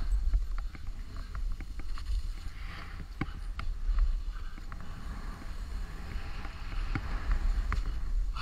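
Wind rumble buffeting an action camera's microphone during a fast powder descent, over the hiss of deep powder snow spraying under the rider, with a few faint ticks.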